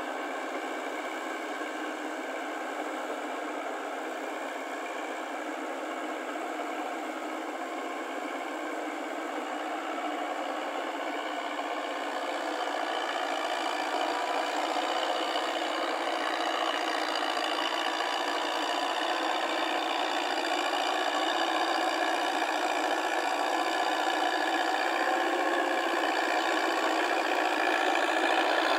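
Diesel engine of a half-tracked paddy tractor running steadily under load as it drives a rotary tiller, growing gradually louder from about ten seconds in as it comes closer.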